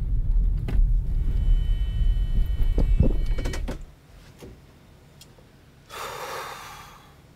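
Car moving slowly, a low rumble of engine and road noise with a few light clicks, heard from inside the cabin, that cuts off about four seconds in. About two seconds later comes a brief hiss lasting about a second.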